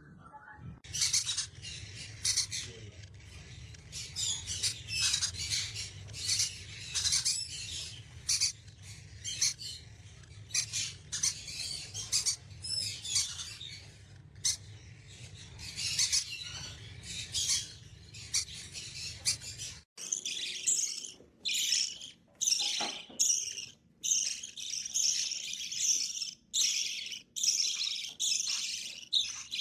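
Birds chirping and twittering in a continuous chorus of short, rapid high calls, with a low hum underneath that cuts off abruptly about two-thirds of the way through.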